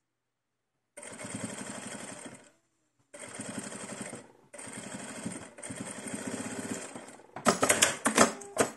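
Domestic sewing machine stitching in four short runs with brief pauses, sewing an optional line of flattening stitches on small doll clothes. Near the end comes a loud burst of clicks and rustling.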